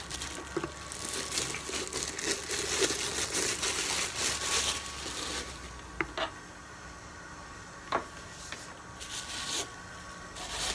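Packaging crinkling and rustling as it is unwrapped and handled, with a couple of sharp clicks partway through.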